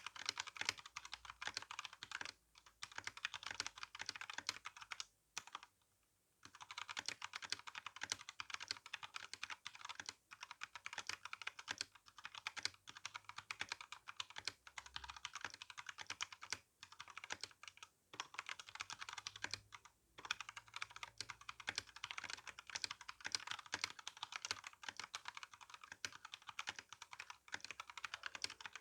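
Typing on an RK61 60% mechanical keyboard with tactile brown switches and GSA keycaps: a fast, steady clatter of keystrokes, broken by a pause of about a second some five seconds in and by a few brief gaps.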